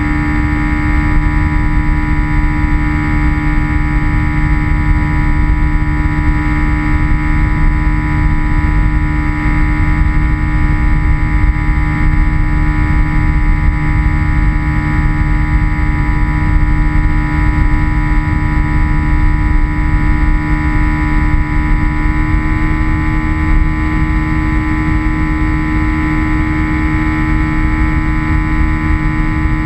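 A model airplane's motor and propeller running steadily in flight, heard from on board as a loud, even whine with rumbling wind buffeting underneath. About 22 seconds in, the pitch steps up slightly.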